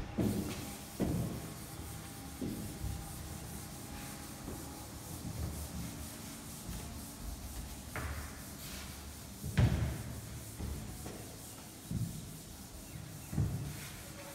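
A felt board duster rubbing chalk off a chalkboard in repeated wiping strokes, several of them louder swipes.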